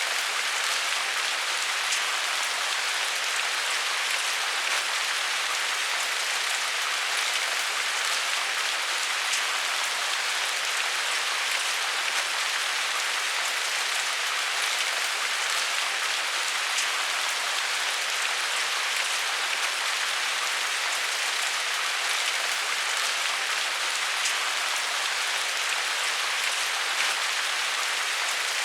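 Steady rain falling on a surface, an even hiss with scattered drop patters.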